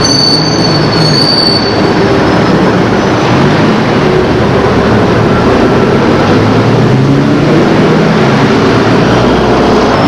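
Loud, steady rumble of a vehicle in motion, with a thin high squeal over it for the first couple of seconds.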